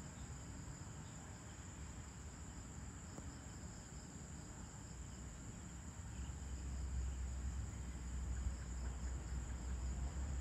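Crickets chirring steadily in a high, even trill. About six seconds in, a low rumble comes in underneath and grows louder.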